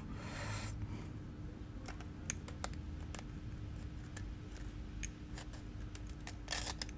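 Metal blade scraping leftover adhesive off an iPhone 11's frame: a scratchy stroke at the start, then scattered small clicks and scrapes, over a faint steady hum.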